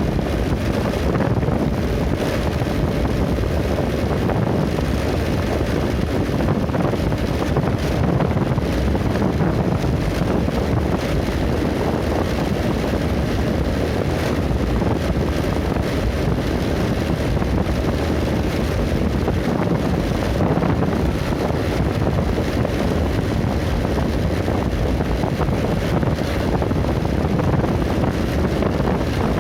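Steady wind buffeting the microphone while travelling along a road: a dense, even low rumble with no breaks.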